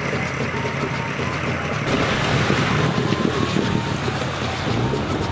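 Outboard motor of a dugout canoe running steadily under way, with water rushing along the hull and wind buffeting the microphone; the sound changes abruptly about two seconds in.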